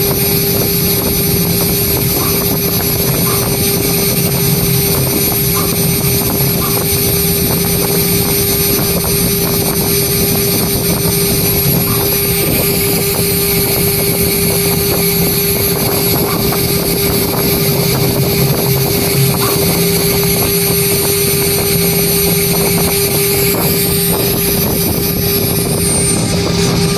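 CNC engraving machine spindle running while its bit engraves lettering into aluminium composite panel (ACP): a steady, unbroken whine over the noise of the cut.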